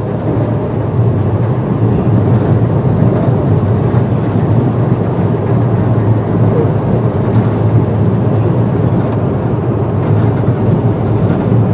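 Passenger train running at speed, a steady loud rumble and rattle of the wheels and carriage heard from inside a sleeper coach.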